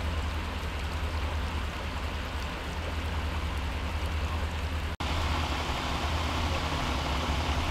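A steady low engine rumble under an even hiss, broken by a brief dropout about five seconds in.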